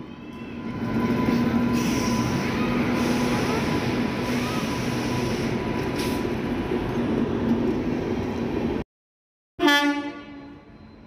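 Cartoon train sound effect: a steady rumbling run of a moving train that cuts off abruptly after about eight seconds. After a brief silence comes a short horn blast that fades away.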